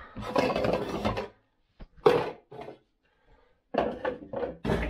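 Kitchenware clattering and knocking as someone rummages in a low kitchen cupboard: a stretch of rustling and clatter, a single sharp knock about two seconds in, then a quick run of clacks and knocks near the end.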